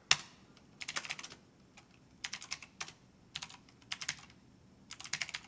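Typing on a computer keyboard: a sharp click just after the start, then about five short bursts of rapid keystrokes with pauses between, as shell commands are entered.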